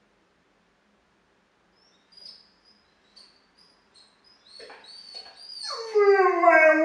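Flatdoodle (flat-coated retriever–poodle cross) whining in short high-pitched whimpers, then breaking into a loud howl about six seconds in that dips at its start and then holds steady. He is complaining at being left behind.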